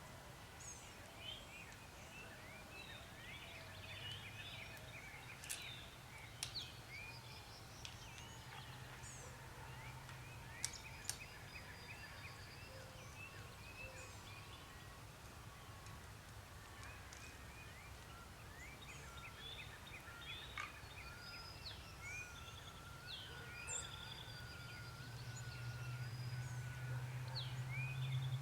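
Faint outdoor birdsong: many small birds chirping and calling on and off. A low steady hum runs underneath and grows louder near the end.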